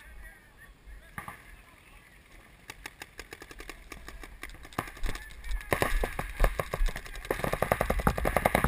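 Paintball markers firing: scattered single shots at first, then rapid strings of shots at about a dozen a second over the last few seconds.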